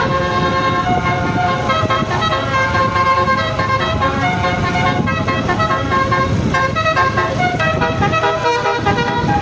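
Basuri telolet bus horn, several air-horn trumpets sounding together and switching from chord to chord as they play a tune without a break. A low rumble runs underneath.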